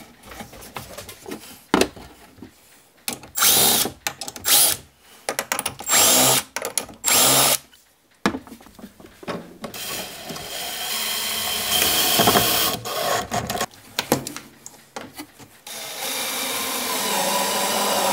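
Cordless drill/driver running in short bursts, then in two longer runs, about ten seconds in and again near the end, driving screws through metal angle brackets into the wooden frame. A few light handling knocks come before the first burst.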